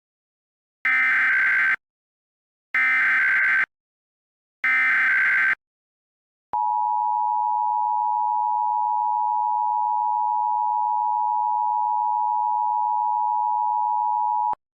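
Emergency Alert System SAME header: three one-second bursts of data tones, then the two-tone EAS attention signal held steady for about eight seconds and cut off sharply.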